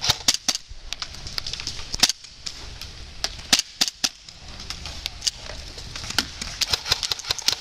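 Airsoft guns firing: sharp pops at irregular intervals, coming in a faster string near the end.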